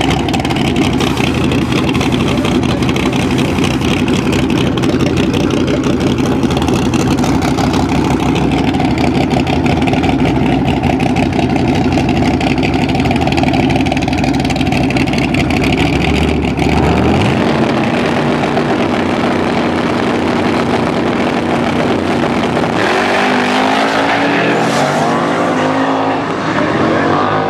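Two drag-racing Mustangs at the start line, their engines idling loudly with a choppy, uneven beat. About two-thirds of the way through the engine sound settles into a steady held note, then the pitch climbs as the cars launch and accelerate away.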